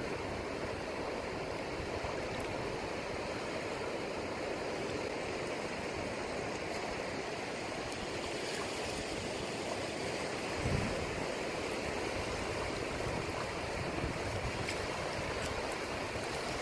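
Steady wash of surf breaking on the reef edge, with shallow water moving around the rocks. One brief low thump about eleven seconds in.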